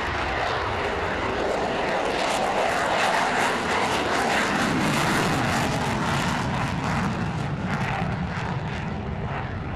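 F-16 fighter jet passing low with its engine in afterburner. The jet noise builds to its loudest about four seconds in, then drops in pitch into a rough, crackling rumble as the jet climbs away.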